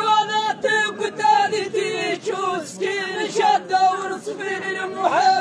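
A group of men singing an Amazigh poetic chant together in unison, a melodic line held on long notes and broken into short phrases.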